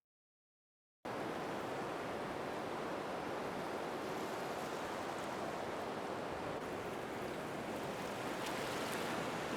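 Waterfall's falling water: a steady, even rush that starts suddenly about a second in, after silence.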